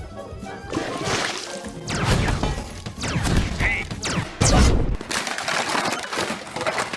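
A jumble of crashes and knocks, many irregular impacts in quick succession, with one heavier thud about four and a half seconds in.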